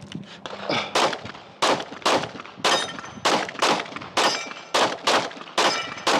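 Glock 45 9mm pistol firing a fast string of about eleven shots, mixing single shots and quick pairs, with the ring of a steel plate after some hits.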